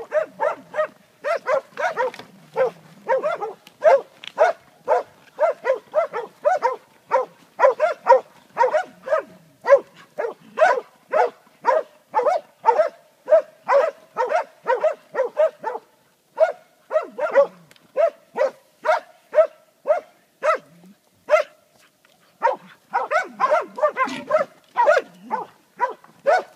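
Hunting dog bay-barking at wild boar: a steady run of barks, about two a second, with a short break about three quarters of the way through. This is the bark a dog uses to hold game at bay.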